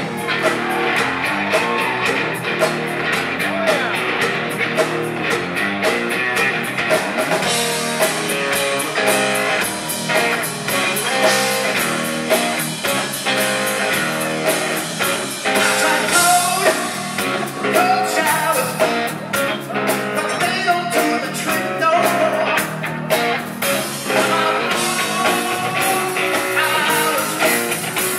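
Live rock band playing loud in a concert hall: electric guitars over a steady drum kit beat.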